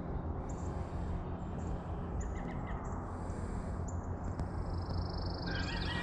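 Birds calling and singing over a steady low background hum: short high chirps come every second or so, and near the end a bird starts a longer trilled song with quick repeated notes.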